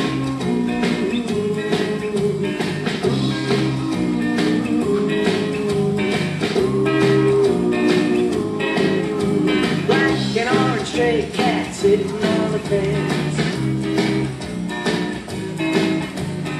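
Blues-rock song with guitar, a steady beat and a singing voice.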